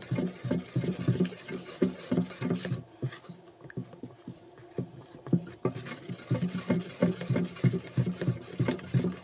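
Wooden spoon stirring a foamy liquid soap mixture in a plastic basin, scraping and knocking against the sides and bottom in quick, irregular strokes. The strokes ease off for about three seconds in the middle, then pick up again.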